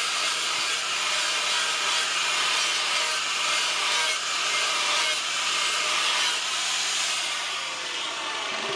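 A power grinder grinding a steel knife blade: a steady, loud grinding hiss over a constant motor hum.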